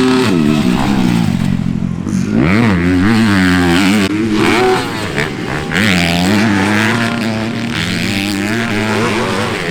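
Motocross race bikes at full throttle, engines revving up and dropping back again and again as the riders shift and roll off for jumps and turns.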